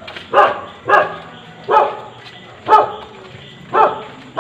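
A dog barking repeatedly, about one loud bark a second.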